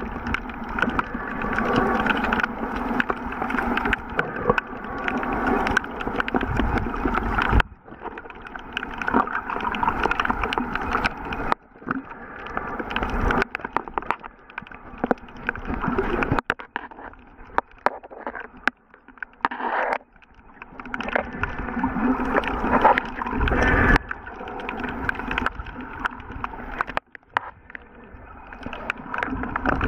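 Muffled water sloshing and bubbling heard through a waterproof camera held underwater. It breaks off suddenly several times, where the footage is cut.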